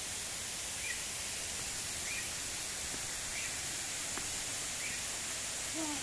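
Outdoor forest ambience: a steady, even rushing hiss, with a small bird giving a short chirp about every second and a quarter.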